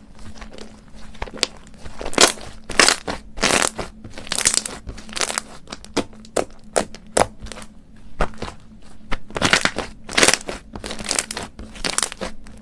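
Slime being squished and pressed by hand, giving irregular sticky crackling and popping bursts and sharp clicks.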